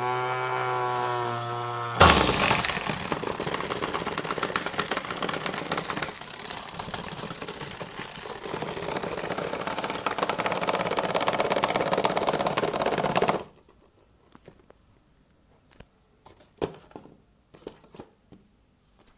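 Small motor of a homemade washing machine built from a medicine box whirring steadily, then about two seconds in breaking into a loud, rough rattle as the machine goes wild. The rattle runs for about eleven seconds and cuts off suddenly, followed by a few light clicks and taps.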